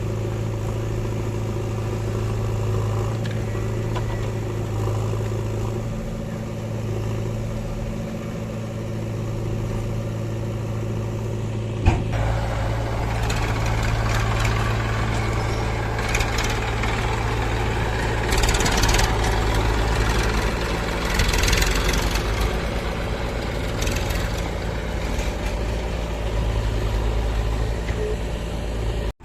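Heavy machine's engine running steadily, with a single sharp knock about twelve seconds in, after which the running turns rougher and noisier, as under working load.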